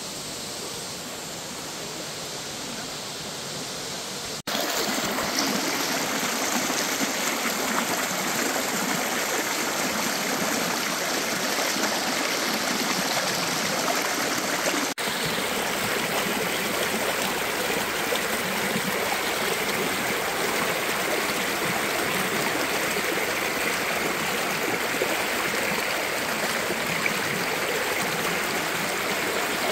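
Erskine Falls waterfall: water pouring and splashing in a steady, even rush. It gets abruptly louder about four and a half seconds in and drops out for a moment about halfway through.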